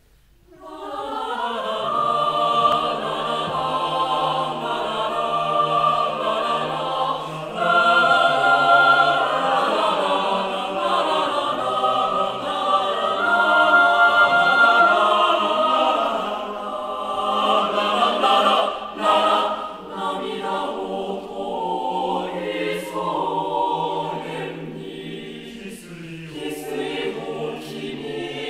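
Mixed choir of men's and women's voices singing in sustained, shifting chords, coming in about half a second in.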